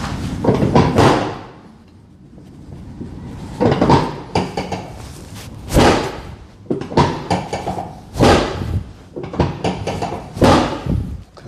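Chiropractic adjusting table thudding during an adjustment of a patient lying on it: about seven separate thumps at irregular intervals, a second or two apart.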